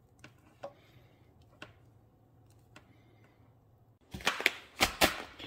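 Faint clicks as clear plastic airline tubing is worked onto an air stone, then about four seconds in a louder, brief crinkling and rustling of a plastic bag of nickel plating crystals being handled.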